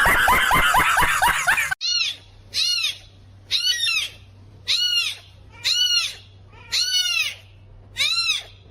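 An animal's high, repeated calls, about one a second, each rising and then falling in pitch. A quick flurry of shorter pitched chirps comes just before them, cut off after about two seconds.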